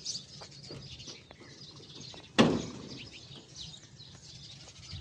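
Birds chirping faintly in the background, with one sharp knock about two and a half seconds in.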